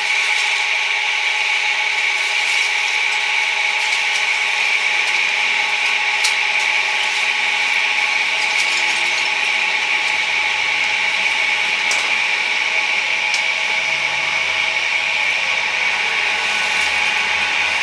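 Steady hiss of a charcoal chicken grill with a faint steady hum under it and a few sharp crackles.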